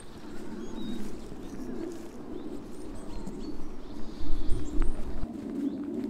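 Wind on an open lakeside, gusting into a low rumble on the microphone about four seconds in, with small birds calling in short, high chirps.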